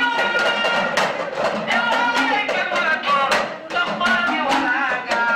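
Music with singing over a steady beat of drums or other percussion.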